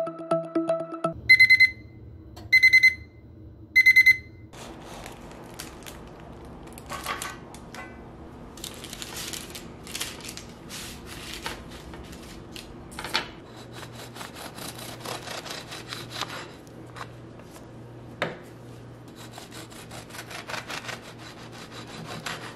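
An oven timer beeps three times, about a second apart, signalling that the baking is done. Then comes the crinkle of parchment paper and handling as the baked loaf is lifted out, and near the end a bread knife saws through the loaf.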